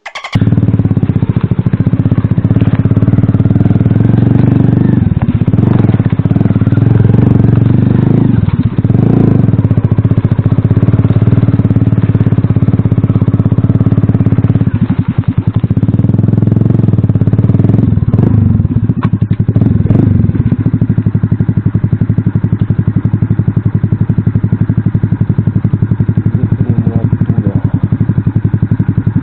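Alpha light motorcycle's single-cylinder four-stroke engine running loud, with the throttle opened and eased off several times in the first two-thirds. It then runs steadier near the end.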